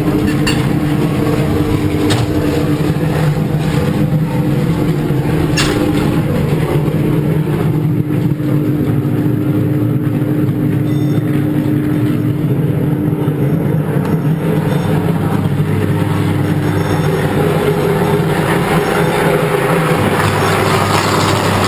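Sustained electrical arc in a high-voltage switchgear cell: a loud, steady buzzing hum with a dense crackle, and two sharp cracks in the first six seconds.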